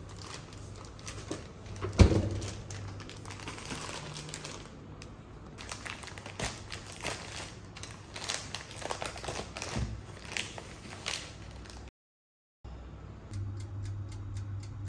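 Plastic packaging rustling and crinkling in the hands, with one sharp thump about two seconds in. Then come quick snips and crackles as scissors cut open a paper-and-plastic pastry packet. A low steady hum starts near the end.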